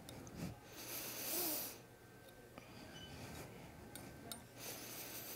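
A person breathing out twice, airy breaths about a second in and near the end, the first the louder.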